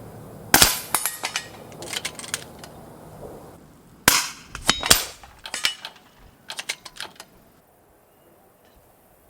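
Bolt-action air rifles firing: sharp shots about half a second in and twice more around four to five seconds in, with smaller metallic clicks of bolts being cycled between them and a quick run of light clicks near the end.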